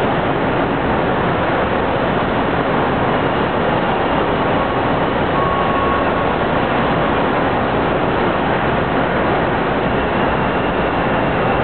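Steady, even noise from a Hong Kong Light Rail car standing at a station platform, with no distinct knocks, starts or stops.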